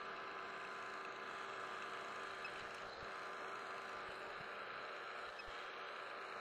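Precision Matthews PM-727 benchtop milling machine running steadily, its spindle turning a small cutter while it machines a round-stock collar, with an even hum and a few fixed tones.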